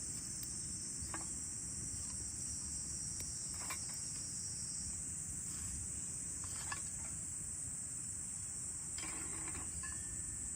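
Insects chirring in a steady, high-pitched outdoor chorus, with a few faint clicks and knocks scattered through it.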